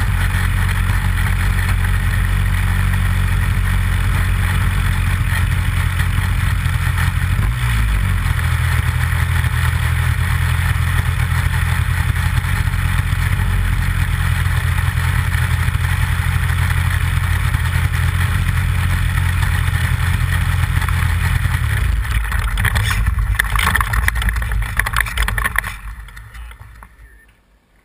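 Nitro glow engine of a Big Stik 60 RC plane running close to an onboard camera, its pitch shifting about a quarter of the way in. Near the end it cuts out and the sound dies away.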